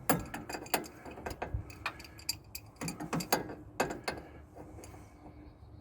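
Irregular sharp metallic clicks of a wrench working on the driver's side tie-rod adjuster, thinning out near the end.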